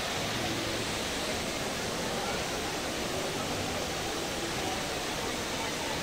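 Steady rushing hiss of a tall indoor waterfall, water sheeting down a multi-storey wall into a pool, with faint voices of people nearby.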